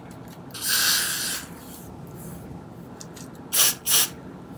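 Aerosol hair spray can spraying onto a wig cap at the hairline to set it like glue: one hiss about a second long, then two short bursts about three and a half seconds in.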